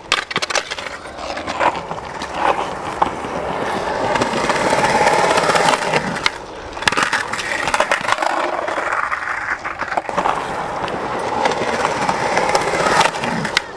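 Skateboard wheels rolling over rough concrete banks, a steady grinding noise that swells and fades as the skater rides up and down. Several sharp clacks of the board hitting the concrete break through it.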